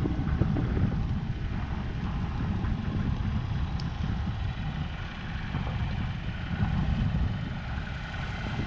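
Compact tractor's engine running as the tractor lifts and carries a heavy crate on its loader forks: a steady low rumble.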